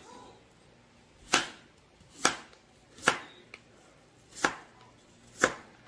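Knife dicing an apple on a cutting board: five sharp knocks of the blade against the board, about a second apart, beginning a little over a second in.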